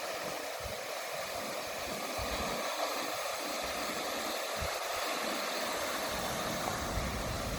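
Ocean surf washing onto a beach: a steady hiss of breaking waves, with irregular low rumbles coming and going underneath.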